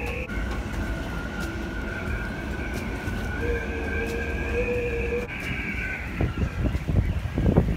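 Storm wind whistling and howling in several steady, wavering tones over a low rumble. From about six seconds in, gusts buffet the microphone in growing, uneven blasts.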